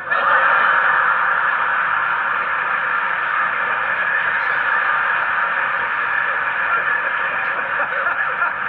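Studio audience applauding and laughing: a loud, steady crowd noise that starts suddenly and holds, heard thinly through a television speaker.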